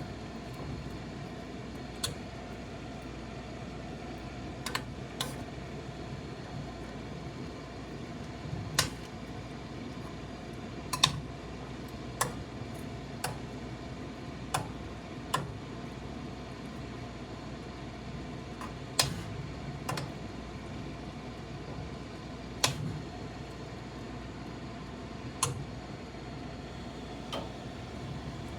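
Soup cooking in a pot, heard as a steady hum with light clicks and taps at irregular intervals, about fifteen in all.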